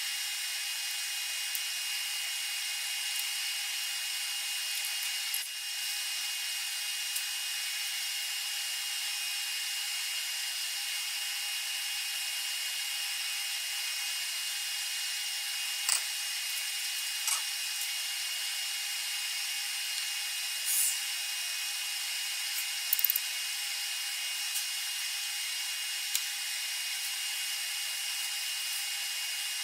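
A power tool's electric motor running steadily with a thin, even whine, with a few short clicks and taps scattered through it.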